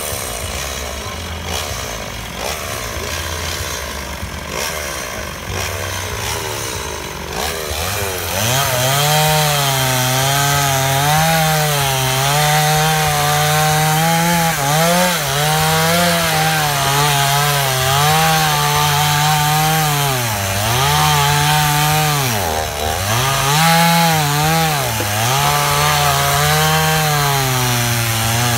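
Two-stroke chainsaw cutting into a log. For the first several seconds it runs rough and lower, then from about eight seconds in it holds a steady high-revving note. That note wavers and dips several times as the chain loads up in the wood.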